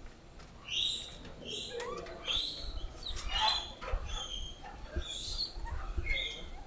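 A string of about a dozen short, high-pitched animal chirps in quick succession, each sliding up or down in pitch, over a low rumble.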